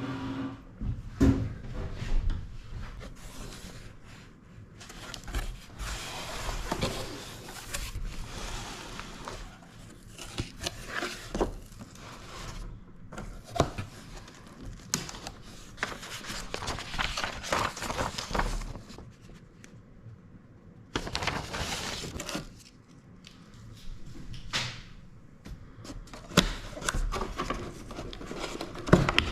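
A cardboard box and its packaging being opened and handled by hand: rustling and scraping in uneven bursts, with occasional sharp knocks and clicks and a few brief pauses.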